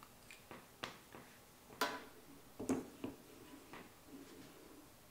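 Scattered light clicks and knocks from handling the stone arm of an Edge Pro Apex sharpening system as it is set onto the guide rod and the knife blade. There are about six separate taps, the sharpest about two seconds in.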